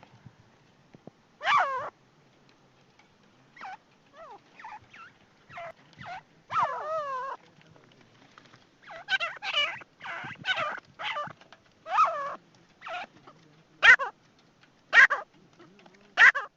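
Teetar (francolin) calling: a string of short, sharp, high calls with gaps of varying length between them, including a quavering call about seven seconds in.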